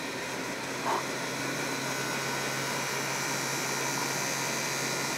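Plumber's gas blowtorch burning steadily in the firebox of a live steam model locomotive, together with a small battery-operated blower fan running on the chimney to draw the fire through the boiler tubes while steam is raised. A steady hiss over a low hum.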